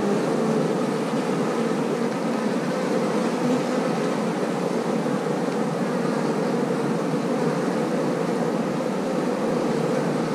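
Honeybee colony buzzing steadily from an open nucleus hive, with frames of bees lifted out close to the microphone; the colony is calm.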